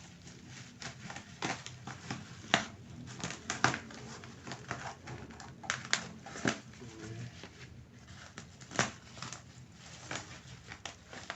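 A parcel's packaging being handled and opened by hand: irregular crinkling and rustling with scattered sharp clicks and snaps.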